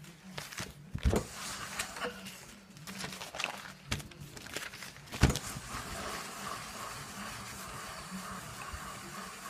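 Paper rustling and a few knocks as a newspaper sheet is laid over the jeans, the loudest knock about five seconds in as a household iron is set down on it. Then a steady hiss as the hot iron is pressed and moved over the newspaper to draw the wax out of the denim.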